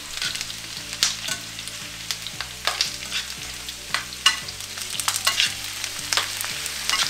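Shrimp and yellowtail snapper pieces sizzling in a stainless steel skillet as metal tongs toss them, with irregular sharp clinks of the tongs against the pan over a steady frying hiss; potatoes fry in oil in a cast iron skillet beside it.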